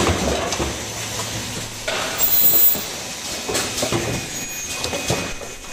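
Automatic cup-mask production line running: steady machine noise from the chain conveyor and welding stations, broken by irregular short hisses and clacks of pneumatic actuators, loudest about two seconds in.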